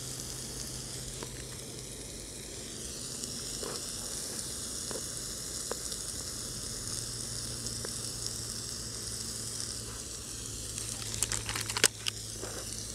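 Mushrooms, tomatoes, cleavers and ham frying in oil in a frying pan, a steady sizzle throughout. A few faint ticks during it and a short cluster of sharp clicks near the end, the loudest moment.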